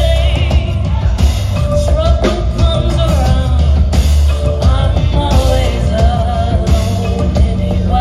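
A woman singing live into a microphone, her voice sliding and bending over loud music with heavy bass and a drum beat.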